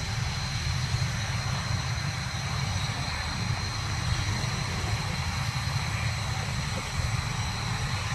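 BAE Hawk T1 jet engines running on the ground, a steady high whine over a low rumble.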